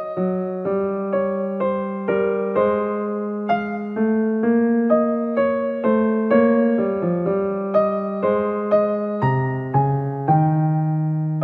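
Background piano music: a melody of single notes and chords struck about twice a second, each note fading away.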